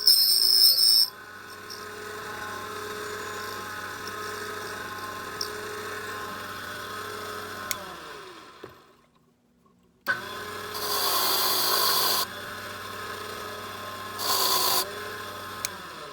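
JMA NOMAD key cutting machine with a KESA R-FP32 cutter cutting a Schlage SC1 key: a high-pitched cutting whine in the first second, then the motor runs steadily and winds down with falling pitch about eight seconds in. After a brief pause the motor starts again and two louder, harsh cutting passes follow, the first about a second and a half long and the second about half a second.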